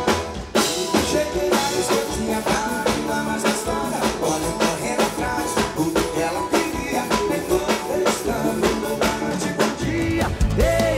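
Live sertanejo band playing: a drum kit keeps a steady beat under electric guitars and bass, with male voices singing into microphones.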